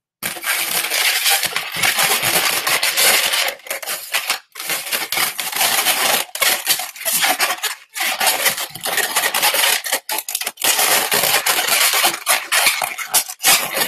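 Long latex modelling balloon (260 size) being twisted and handled close to the microphone: loud rubbing, squeaking and scratching of the latex, with a few short breaks.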